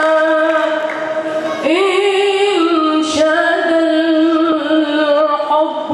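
A boy's solo voice singing a nasheed without accompaniment, holding long wavering notes with melodic turns between them.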